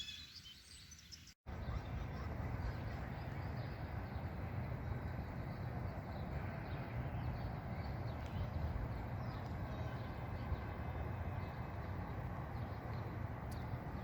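Faint bird chirps, then an abrupt cut about a second and a half in, after which a steady outdoor rushing noise, heaviest in the low end, runs on with faint bird calls over it.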